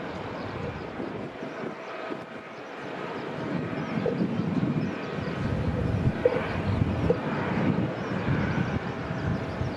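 Jet airliner engines heard from a distance across the airport, a steady rushing noise that grows louder about three seconds in, with an uneven low rumble underneath.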